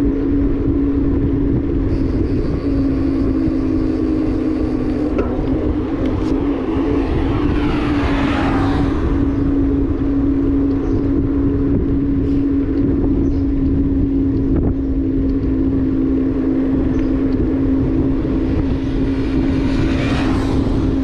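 Motorbike engine running steadily under way. A higher sound swells briefly about eight seconds in and again near the end.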